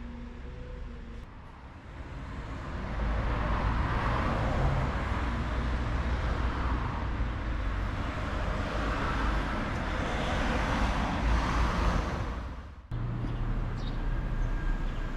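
Road traffic noise: motor vehicles passing along the street, swelling about two seconds in and holding for some ten seconds. Near the end it cuts off abruptly to a steadier low hum.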